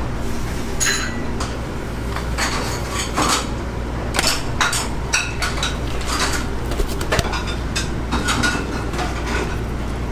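Metal containers and utensils knocking and clinking against a large metal mixing bowl as sauce ingredients are tipped in, over a steady low kitchen hum.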